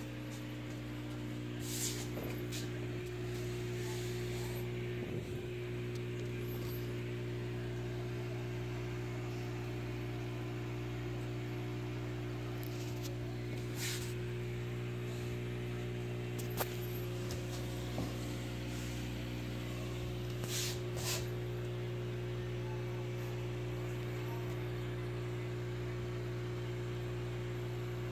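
Steady electric hum of an aquarium air pump driving the bubbling airstones, with a few short clicks.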